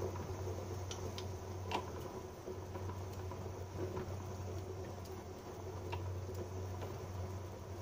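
A pot of soup with black-eyed beans and peanuts at a rolling boil, bubbling with scattered small pops and ticks over a steady low hum.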